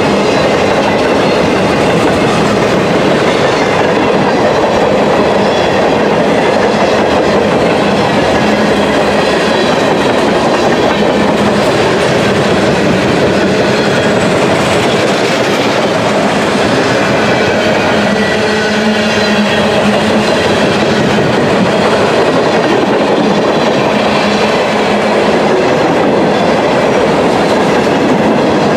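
Freight train cars rolling past close by at speed: steady, loud wheel-on-rail rumble with the clickety-clack of wheels over rail joints, unbroken as boxcars, container well cars and tank cars go by.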